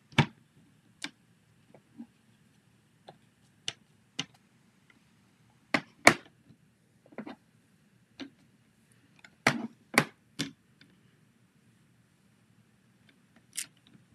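Scattered sharp clicks and knocks of card-stamping tools being handled: a photopolymer stamp being inked and pressed down in a hinged stamp positioner. The loudest knocks come about six and ten seconds in.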